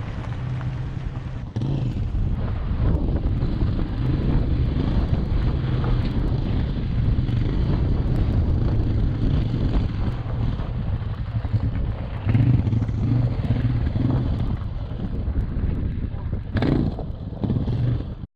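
Tyres of an electric Tesla Model 3 rolling over a rough dirt-and-rock trail: a steady low rumble with occasional knocks, and wind buffeting the camera microphone. There is a sharper knock near the end, then the sound cuts off suddenly.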